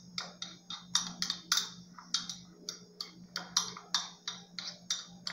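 Quick, irregular light clicks and taps of a utensil against a cup, about four a second, as moistened flocão couscous is pressed and smoothed into the cup.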